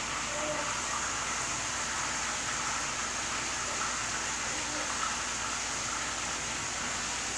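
Pork chops frying in a skillet on the stove, a steady sizzle.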